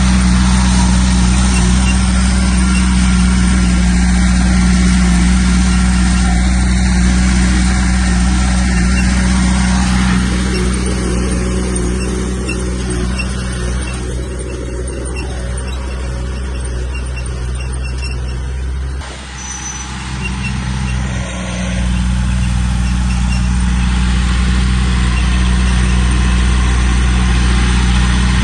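Heavy diesel earth-moving machinery running steadily at a working roar. It eases somewhat for several seconds in the middle, with a brief drop in the deep engine note about two-thirds of the way through before it comes back.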